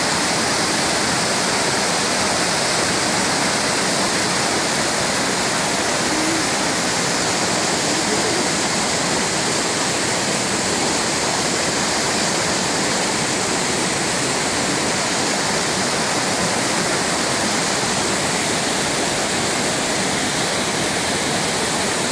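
Tall waterfall plunging down a rock face into a pool, with a steady, even rush of falling water.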